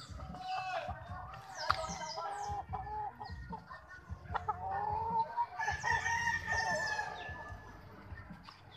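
Several gamefowl roosters crowing and clucking, their calls overlapping, with a longer crow in the second half.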